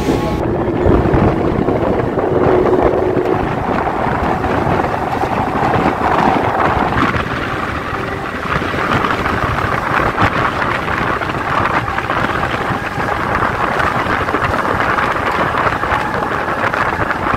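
A Mumbai suburban local electric train running at speed, with continuous running noise and wind rushing past.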